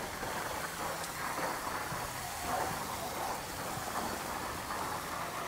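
Water jetting from an opened fire-line outlet on a dock and splashing onto the decking, a steady hiss and patter. The line is being flushed of its salt water, so that it is charged with no air before the fresh water from the fire truck comes through.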